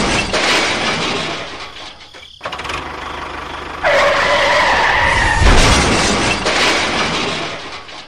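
Vehicle crash sound effects: a crash with shattering that fades over about two seconds, a second noisy hit, a held squealing tone for about a second and a half near the middle, then another crash that fades out.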